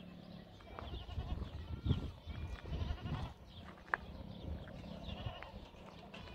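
Farm animals bleating, several calls overlapping, with a few low knocks and a sharp click about four seconds in.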